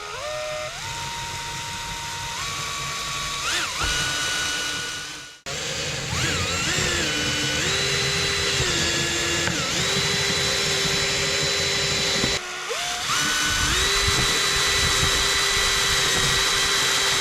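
Handheld power tool's electric motor running at a series of steady speeds, its whine stepping up and down in pitch between them. It stops for a moment just over five seconds in and dips briefly about twelve seconds in before running on.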